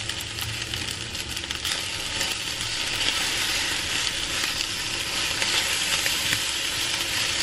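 Nasi goreng fried rice sizzling in a non-stick frying pan as it is stirred and turned with a silicone spatula: a steady frying hiss with faint scrapes and ticks of the rice being moved.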